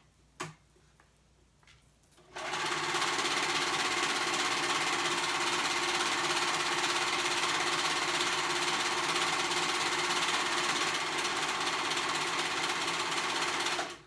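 Serger (overlocker) starting about two seconds in and running at a steady speed for about eleven seconds as it stitches a hoodie's long side seam, then stopping abruptly just before the end.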